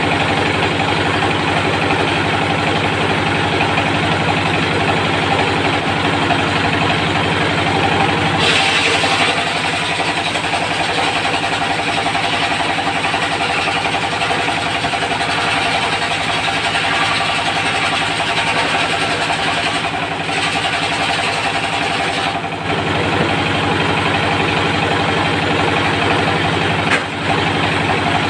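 Diesel engine of a portable circular sawmill running steadily. From about eight seconds in until about twenty-two seconds, its low note weakens and a higher hissing rasp rises over it, as the circular blade saws through teak.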